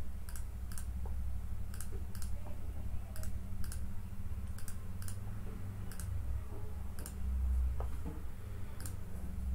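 Scattered sharp clicks at a computer, irregular, about one or two a second, over a steady low hum.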